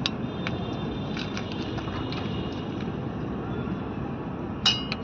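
Vehicle engine running with a noise from the alternator, which the mechanic puts down to the alternator, marked and with something caught in it. A faint high whine sits over the steady running in the first half, with small scattered clicks and a sharper click near the end.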